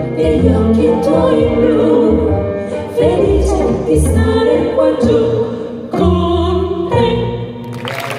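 Female vocal quartet singing in close harmony over live backing of strings and double bass, closing on a held chord. The music stops shortly before the end and audience applause breaks out.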